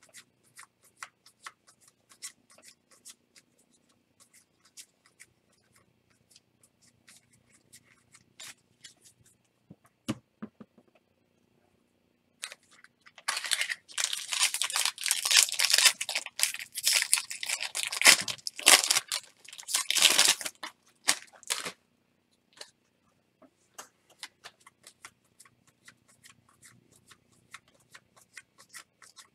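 Baseball cards being handled with small clicks and flicks, and about thirteen seconds in a loud crinkling tear of a card pack's wrapper being ripped open for about eight seconds, after which the light card handling resumes.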